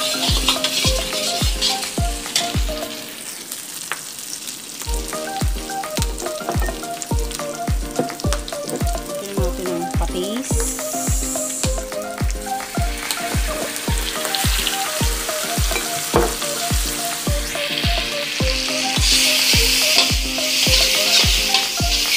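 Crushed shrimp and chili sizzling in a hot wok as a metal spatula stirs them, over background music with a steady beat of about two thumps a second. The sizzle flares briefly about ten seconds in as fish sauce is poured in, and grows louder near the end.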